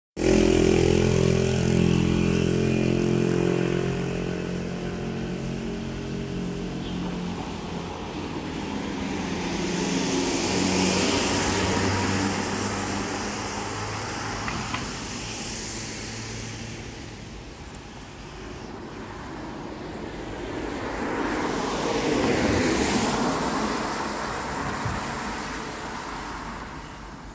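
Road traffic: a vehicle engine hums at a steady pitch for the first few seconds, then passing vehicles swell up and fade away twice, about a third of the way in and again near the end.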